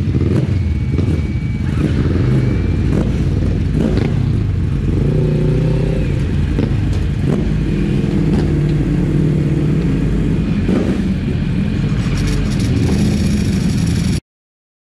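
2008 Yamaha R6's 600 cc inline-four running hard on the move, its pitch rising and falling as the throttle and gears are worked. The sound cuts off abruptly just before the end.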